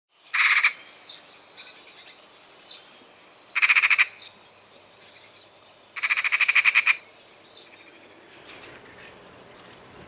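Eurasian magpie chattering: three harsh, rapid rattles, the last about a second long, with faint chirps of small birds between them.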